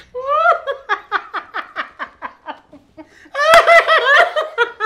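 A man and a woman laughing hard, in a quick run of short, high-pitched laughs, each falling in pitch. The laughter breaks out again louder about three seconds in.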